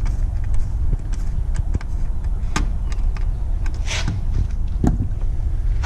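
Small clicks and knocks of hand work on a vehicle taillight, the screws being driven in with an improvised Torx screwdriver, over a steady low rumble. There is a short hiss about four seconds in and a louder knock just before five seconds.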